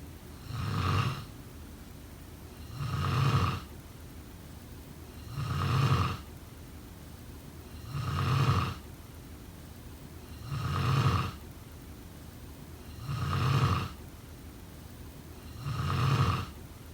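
Person snoring in a steady rhythm: seven evenly spaced snores about two and a half seconds apart, each lasting under a second.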